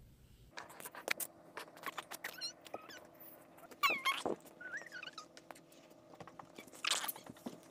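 Short, high squeaky animal calls that bend in pitch, heard several times over a scatter of light clicks and a faint steady hum.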